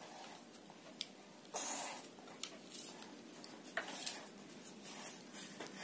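Faint handling of a four-piece Relix Nusantara Rotan fishing rod as its sections are pushed together: a few light ticks and two short rubbing scrapes, about a second and a half in and again near four seconds.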